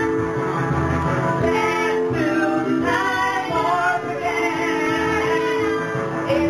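Music with a woman singing into a handheld microphone over a karaoke backing track.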